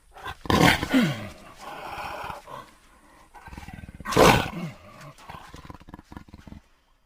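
Jaguar roaring: two loud calls, about half a second in and about four seconds in, each falling in pitch, each followed by a run of quicker, weaker grunting pulses.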